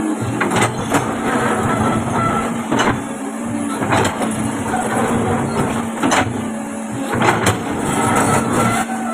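Komatsu PC200 excavator's diesel engine running steadily, with scattered sharp knocks.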